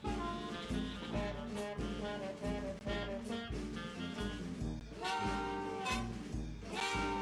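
Upbeat instrumental background music with a steady beat, about two beats a second.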